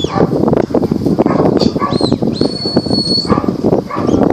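Sheepdog handler's whistle commands: short rising whistles and one long, steady held whistle near the middle, over loud, choppy nearby noise.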